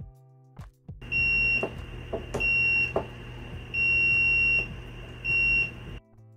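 Fluke multimeter's continuity beeper sounding four times, two short beeps and two longer ones, with a few light clicks between them. Each beep marks the probed start/stop switch closing its circuit during a continuity test.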